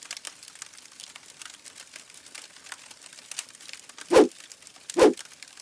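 Sound-effect crackle of fire and sparks: dense, fast, fine clicks. About four seconds in come two heavy thuds roughly a second apart.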